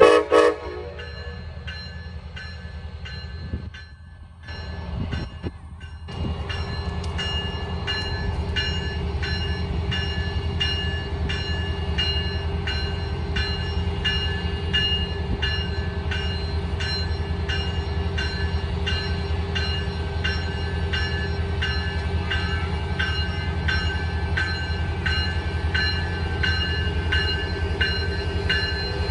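Pacific Surfliner's Siemens Charger diesel locomotive pulling a passenger train slowly past, its engine running steadily and louder from about six seconds in, with its bell ringing about twice a second. A short horn blast sounds at the very start.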